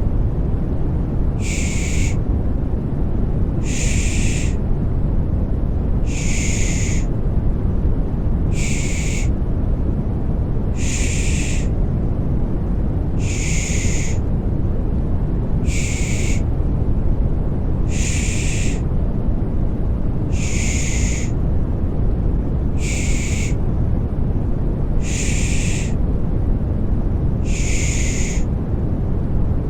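Rhythmic 'pış pış' shushing for lulling a baby to sleep: short hissing 'shh' sounds repeating evenly about every two and a quarter seconds over a steady, deep rushing white noise.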